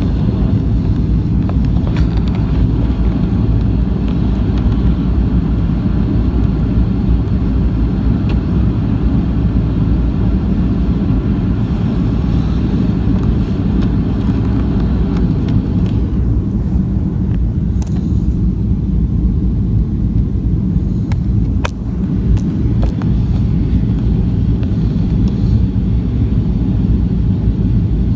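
Steady low rumble inside a jet airliner's cabin in flight: engine and airflow noise at a window seat over the wing. A few faint clicks come through it, and the hiss eases for a few seconds after the middle.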